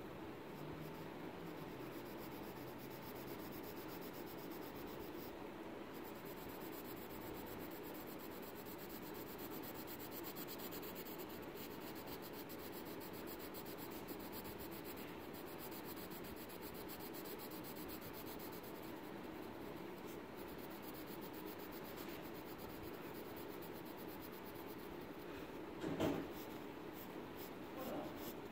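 Graphite pencil scratching and rubbing on sketchbook paper in steady shading strokes, with one short louder knock near the end.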